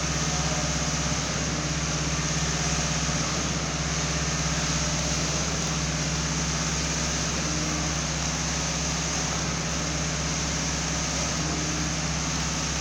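Concrete pump's engine running steadily, a constant low drone.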